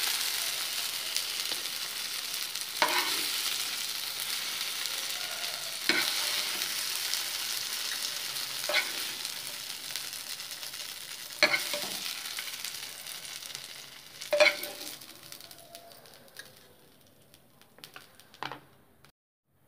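Oil sizzling around paneer pieces frying in a pan, dying away steadily as the pan cools with the stove switched off. A spatula knocks or scrapes against the pan every few seconds as pieces are lifted out.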